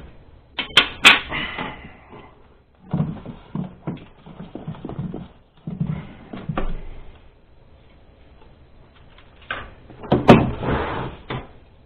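Plastic cover panel and filter cassettes of a Wolf CWL 300 ventilation unit being handled: sharp clicks about a second in as the panel is unlatched, then knocking and scraping as the filters are pulled out of their slots, loudest about ten seconds in.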